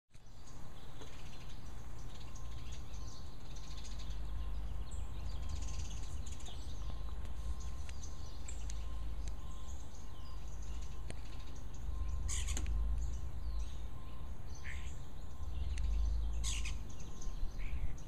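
Birds chirping and calling here and there, over a steady low rumble of background noise.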